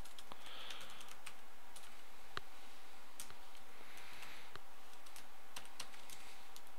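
Computer keyboard being typed on: irregular, scattered key clicks over a steady background hiss.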